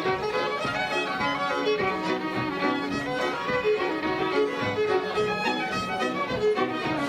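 Instrumental Irish traditional music led by fiddle, a run of quick melody notes over a steady accompaniment.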